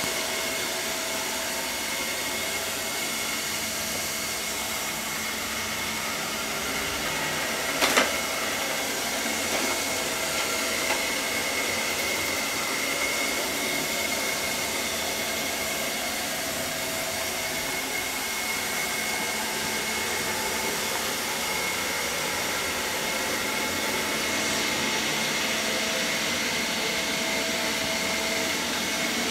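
ILIFE V5S robot vacuum, a suction-only model with no motorized brush, running steadily with an even fan whine that carries a high steady tone. One sharp knock about eight seconds in.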